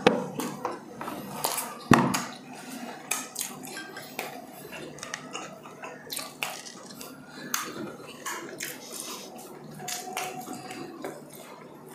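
Cutlery and glassware clinking against dishes during a meal, with scattered small clicks and a sharper knock about two seconds in.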